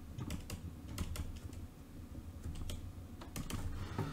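Stylus tapping and scratching on a tablet screen while handwriting a word: a run of light, irregular clicks over a faint low hum.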